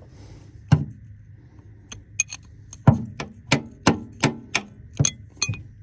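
Sharp metallic clinks of a steel wrench knocking against the bolts of a hydraulic hose fitting, about a dozen in all. A few are scattered early, then they come about three a second through the second half.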